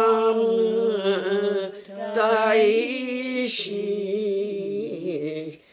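Several voices singing a Buddhist goeika hymn together, in slow, long-held notes that bend gently in pitch. The phrase breaks off near the end.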